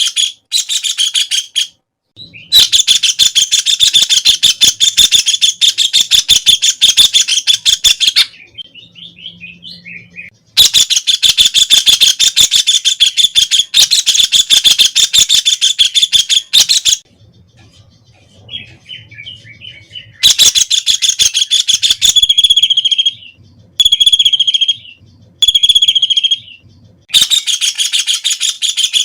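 White-throated kingfisher giving its loud, rapid rattling call in long trains of several seconds, separated by brief pauses filled with softer chatter. Between about 22 and 27 seconds in, it gives shorter, clearer ringing notes instead.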